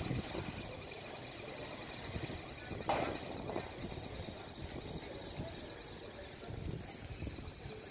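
Faint outdoor background noise with distant road traffic, a short knock about three seconds in, and a few brief high chirps, the last one rising.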